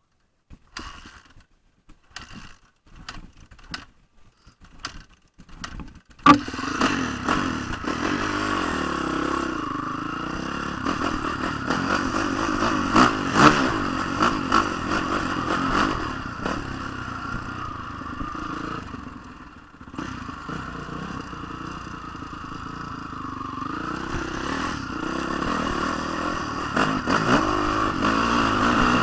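Honda CRF450 four-stroke single-cylinder dirt bike engine, heard from the rider's position, running and revving as the bike rides over gravel: loud from about six seconds in, dipping briefly later and rising near the end. Before that, only scattered clicks and clatters.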